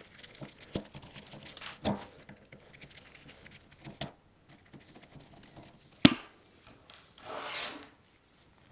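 Parts being handled on a bench: a few scattered knocks and clicks, one sharper knock about six seconds in, then a short scrape.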